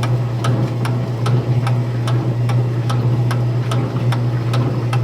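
Kenmore laundry center running with a steady low hum and a regular clicking, about two to three clicks a second. This is the clicking fault the machine is being recorded for.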